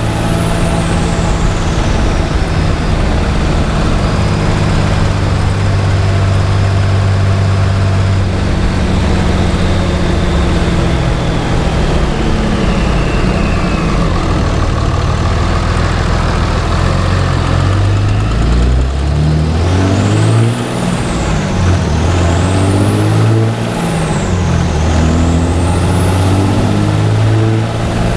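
Cummins turbo-diesel truck engine running under load, its turbocharger whistling: a thin high whine that falls away early, then rises and falls three times near the end as the engine note changes.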